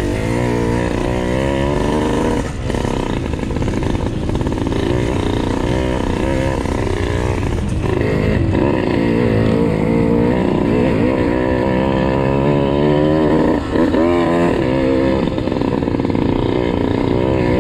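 Dirt bike engine running under riding load, the revs rising and falling over and over as the bike is ridden along a rough dirt trail.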